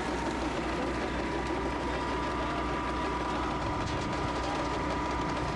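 Placer mining wash plant and heavy equipment running steadily: a constant mechanical rattle with a steady whine over it.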